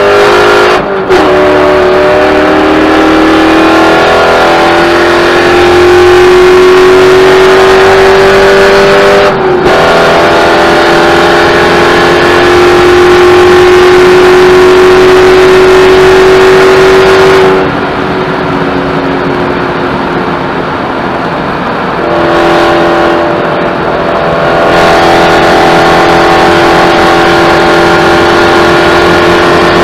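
Onboard sound of a Spec Corvette race car's V8 at high revs under full throttle, its note climbing slowly, with a quick upshift about a third of the way in. Past the middle the driver lifts off for a few seconds, and then the engine goes back to full power.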